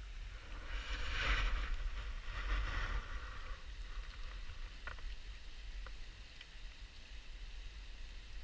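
Muddy floodwater rushing down a rain-swollen woodland creek, under a low rumble of wind on the microphone. A louder rushing swell comes about a second in and lasts a couple of seconds, and two faint sharp clicks follow later.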